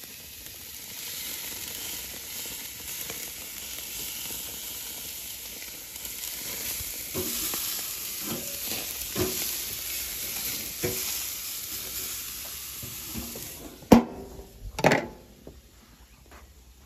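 Rib eye steaks sizzling on the grates of a propane gas grill, with a few clinks and scrapes of metal tongs against the grate. About 14 s in come two loud metal clanks a second apart as the grill lid is shut, and the sizzle falls away.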